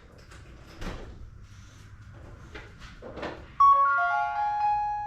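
A few light clicks and knocks, then about three and a half seconds in, music starts suddenly with a bright chord of held notes that come in one after another and slowly fade.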